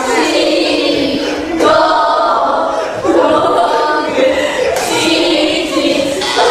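A group of young women counting aloud together in a drawn-out, chant-like unison, one number after another, to time someone eating a cucumber as fast as she can.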